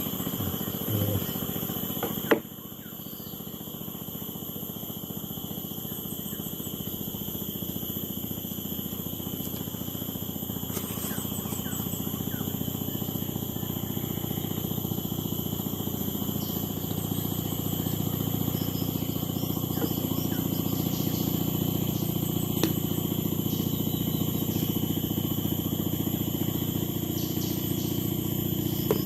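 Steady high-pitched drone of forest insects, with a low motor hum underneath that slowly grows louder. A single sharp click sounds about two seconds in.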